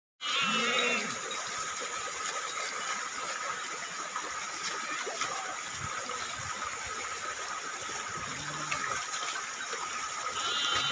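Shallow stream water running steadily over rocks, with a flock bleating briefly twice, about half a second in and again near the end.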